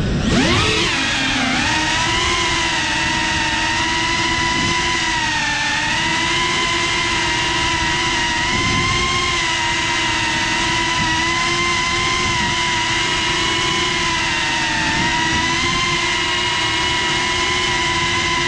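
FPV drone's electric motors and propellers whining: a sharp rise in pitch right at the start as it lifts off from the ground, then a steady whine that wavers slightly in pitch as it orbits.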